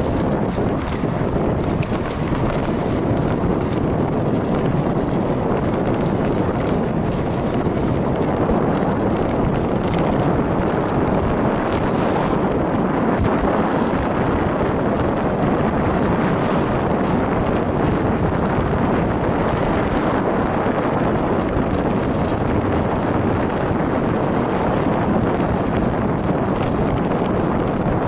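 Steady rush of wind buffeting the microphone of a camera mounted on a moving bicycle, with a low rumble beneath it and no breaks.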